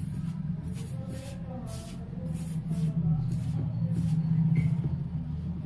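A hand mixing shredded cabbage with flour in a steel bowl: repeated soft rustling, squishing strokes. A steady low engine-like hum runs underneath and is the loudest part.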